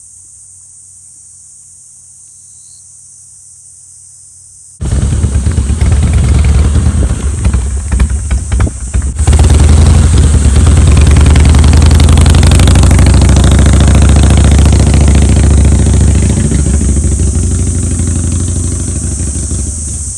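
Steady high-pitched insect chirring, then about five seconds in a motorcycle engine starts up suddenly and runs at idle. It gets louder a few seconds later and eases off slightly toward the end, with the insects still audible above it.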